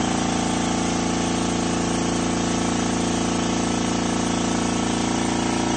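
Remote air-driven hydraulic pump running steadily, powering the tube bender's hydraulic ram, with an even mechanical drone.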